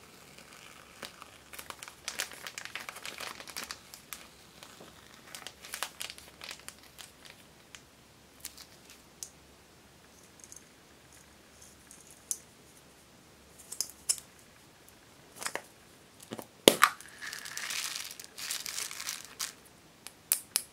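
Plastic piping bag crinkling as it is squeezed, then scattered clicks of a clear plastic ball container being handled. A sharp snap about two-thirds through as the container opens, followed by a couple of seconds of foam beads pouring and rustling out of it.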